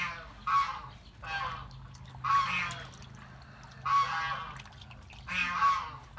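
An animal's repeated honking calls, five in all, coming every second or so.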